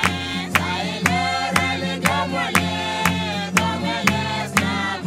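A group of voices singing together to a strummed ukulele, with a steady beat of strokes about twice a second.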